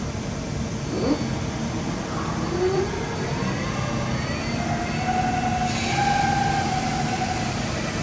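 Mazak Slant Turn 50 CNC lathe spindle with its three-jaw chuck running up to speed over a steady machine hum. A rising whine climbs from about two seconds in, then holds as a steady whine.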